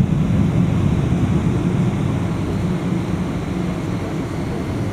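Cabin noise of a Boeing 777-200ER taxiing: a steady low rumble heard through the fuselage, easing off slightly.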